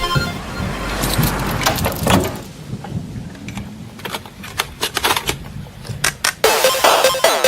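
A bicycle rattling over a rough road surface: a rush of wind and tyre noise that fades after about two seconds, then scattered clicks and knocks, coming thickest toward the end.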